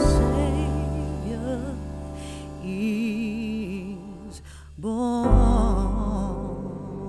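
Background music: a slow, gentle piece with a wavering melody over sustained low bass notes.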